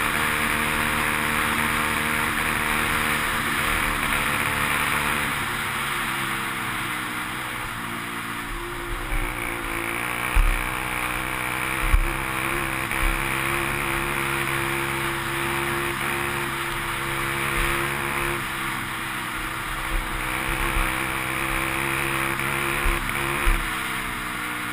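Yamaha TTR 230's air-cooled single-cylinder four-stroke engine running at a steady cruising speed, with steady wind rush on the microphone and a few short low thumps from about ten seconds in.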